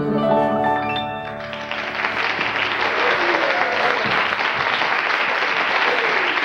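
The last sustained chord of a song dies away in the first second or so, then a studio audience applauds.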